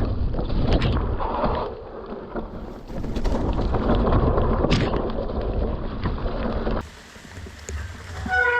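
A mountain bike riding down a wet trail: tyres rolling over mud and rock, with clicks and knocks from the bike, a low rumble and wind buffeting the microphone. The noise cuts off abruptly near the end.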